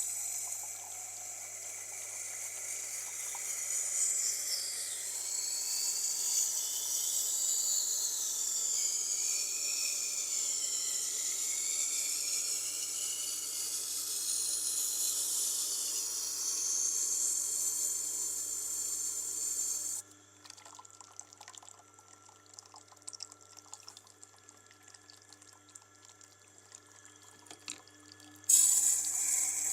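Knife blade grinding on a Tormek's slow-turning wet grindstone: a loud scraping hiss whose pitch sweeps up and down as the blade is drawn along the stone, over a steady motor hum. About two-thirds of the way through the grinding stops, leaving the hum and light clicks, and it starts again near the end.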